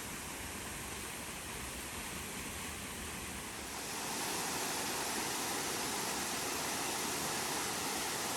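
Steady rushing noise that grows louder about four seconds in.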